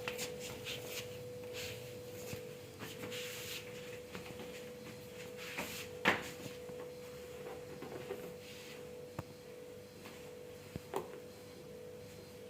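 A faint steady hum throughout, with a single sharp crack about six seconds in and a couple of fainter clicks near the end, as a chiropractic thrust is given and a spinal joint cracks.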